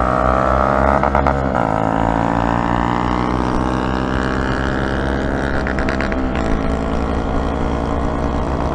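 Honda Monkey 125's single-cylinder four-stroke engine running steadily as the bike is ridden, its pitch shifting slightly a little over a second in and again about six seconds in.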